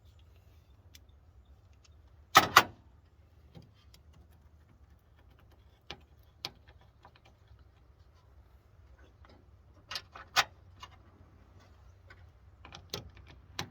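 Scattered clicks and knocks of hand work on parts in a truck's engine bay, such as fitting radiator hoses and a fan shroud, with a sharp double knock about two seconds in and another pair near the middle. A low steady hum sits underneath.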